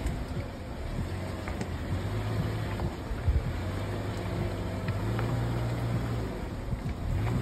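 Suzuki Jimny JB43's four-cylinder engine running at a low, steady drone as the 4x4 crawls over creek rocks, with a few scattered knocks from the tyres on stone.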